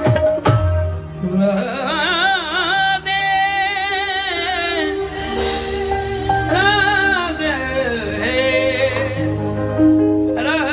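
A man singing a devotional song live into a microphone, in long ornamented phrases with heavy vibrato. Sustained accompanying notes carry on beneath the voice and between the phrases.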